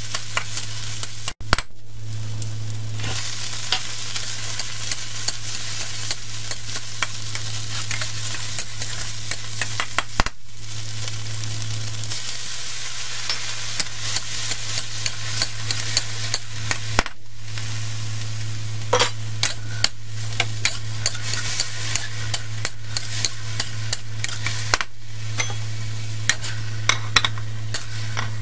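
Stir-frying in a steel wok: hot oil sizzling steadily while a metal wok spatula stirs and scrapes, with many sharp clicks of the spatula striking the wok. A steady low hum sits underneath, and the sizzle breaks off briefly a few times.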